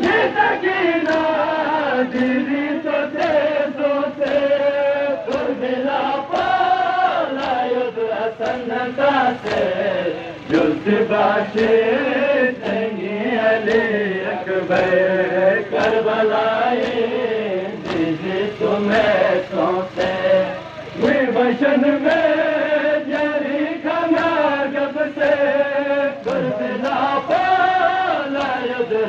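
A Balti noha, a Shia mourning lament, chanted by male voices and carried over a loudspeaker horn. It is punctuated by the crowd's rhythmic chest-beating (matam), about three strikes every two seconds.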